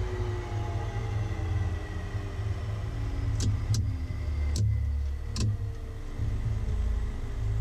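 A vehicle's low running rumble, with faint tones sliding slowly downward. Four sharp clicks come in the middle, spaced about half a second to a second apart.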